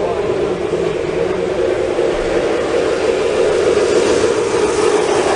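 Model trains running on the layout: a steady mechanical running noise of wheels and motors on the track. The hiss grows louder about four seconds in as a locomotive passes close by.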